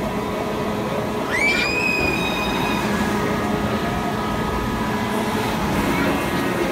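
Swinging pirate ship amusement ride in motion: a steady rumble of the ride. A little over a second in, a single high-pitched squeal rises in and is held for about a second and a half.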